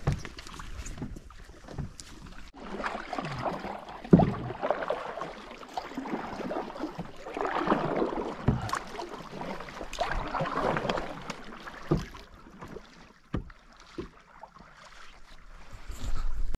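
Kayak paddle strokes splashing through calm river water, coming in surges every few seconds, with a few short knocks.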